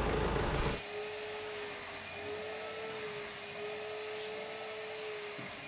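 A broad outdoor rumble cuts off under a second in, giving way to a steady hum at one pitch, wavering slightly, like a small electric motor running.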